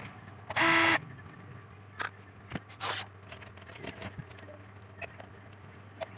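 A short, loud buzzing whir from a small motorized hand tool about half a second in, then scattered light clicks and scrapes of metal parts being handled as an amplifier's power transformer is taken apart.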